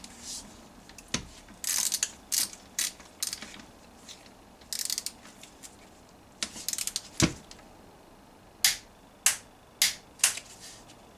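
Ratchet wrench clicking in short runs while a transmission case bolt is turned, with a couple of dull knocks of tool on the metal case and four sharp clicks near the end.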